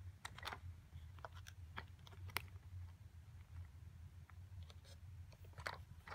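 Faint, scattered light clicks and taps of a plastic Hot Wheels Sto & Go playset and a die-cast toy truck being handled, over a low steady hum.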